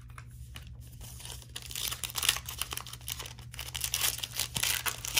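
Plastic trading-card pack wrapper crinkling and tearing as it is pulled open by hand, the crackle growing louder from about two seconds in.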